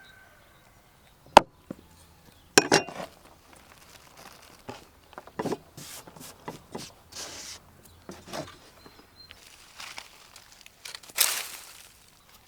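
Food-preparation handling sounds: a sharp clink, a few knocks, and scattered rustling and clattering, with a louder rustle near the end.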